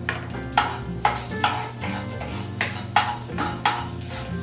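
Wooden spatula stirring and scraping a nonstick frying pan, about two strokes a second, while spices sizzle in hot oil for an Indian tempering (phodni).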